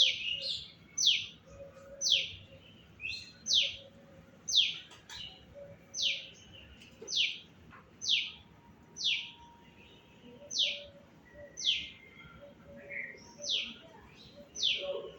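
A bird calling over and over with a short chirp that falls sharply in pitch, repeated steadily about once every three-quarters of a second.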